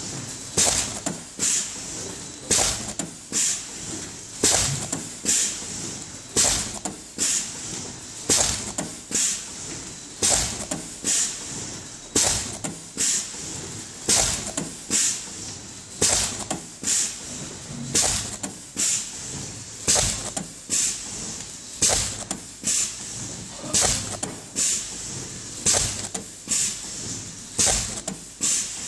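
Stamping heads of a BEM-400 bubble padded envelope making machine working at production speed, each stroke a short hiss of air, about one every three-quarters of a second in a steady rhythm, over the continuous running of the machine.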